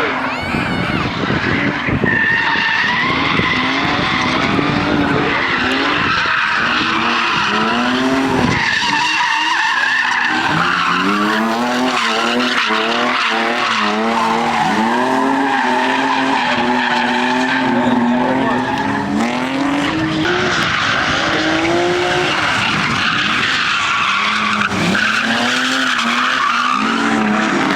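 Drift car sliding with its tyres screeching, the engine revving up and down over and over as the throttle is worked, with quick rev swings in the middle.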